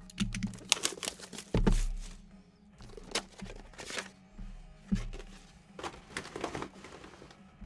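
Background music with a low beat, over short clicks, taps and rustles of cardboard trading-card boxes being slid out of a stack and set down on a table.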